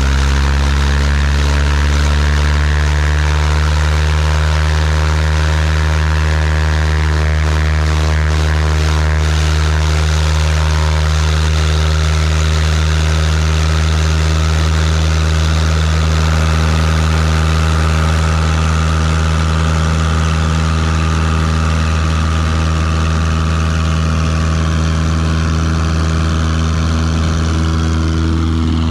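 Cessna 172's piston engine and propeller running at takeoff power through the takeoff roll, rising slightly in pitch over the first few seconds and then holding steady.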